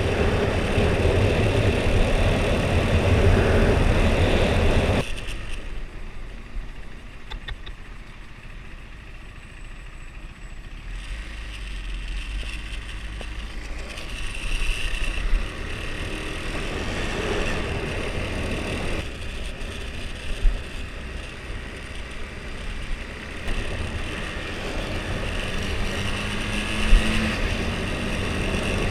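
Husqvarna Svartpilen 401's single-cylinder engine on its stock exhaust, heard while riding along with wind rush. The sound drops sharply about five seconds in, stays quieter for several seconds, then builds again as the bike picks up.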